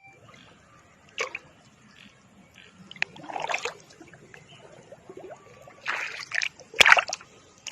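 Water splashing and sloshing in a few short bursts, with quieter trickling between them.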